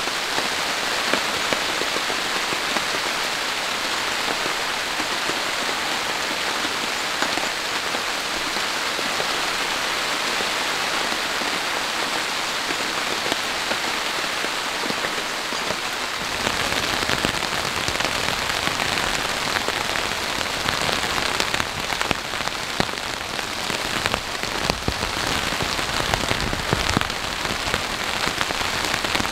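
Steady heavy rain falling, a dense even hiss of drops. About halfway through the sound changes: it grows fuller and deeper, with more distinct drop hits.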